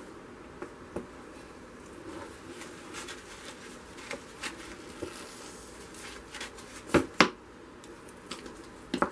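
Plastic paint squeeze bottles being handled and set down on a plastic-sheet-lined tub: scattered light clicks and knocks, the loudest two in quick succession about seven seconds in and another near the end.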